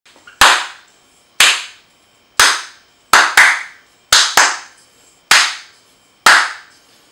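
Hand claps, nine in all, mostly about a second apart with two quick pairs in the middle, each sharp with a short ringing fade.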